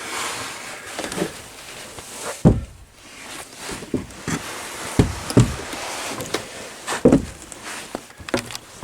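Footsteps on old wooden floorboards: several heavy thuds and lighter knocks, irregularly spaced, after a rustling hiss in the first couple of seconds.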